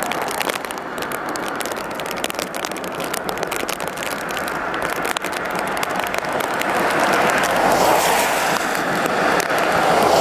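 Steam locomotive approaching while still out of view, its exhaust a rushing, crackling noise that grows steadily louder over the last few seconds.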